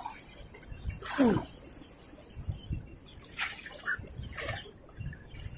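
Insects trilling with a steady high-pitched tone, outdoors by a river. About a second in there is a brief falling sound, and near the middle a couple of short rustles or splashes.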